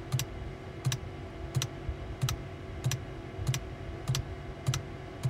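Diesel pump of an Eberspächer Hydronic M10 heater clicking at an even pace, about one click every two-thirds of a second, over a steady hum. The speed of the clicking shows the heater's diesel demand: the faster, the higher the power setting.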